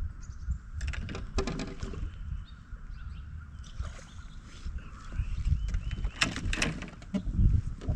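Water splashing and sharp knocks around a fishing boat, in two clusters about a second in and again near the end, over steady wind rumble on the microphone.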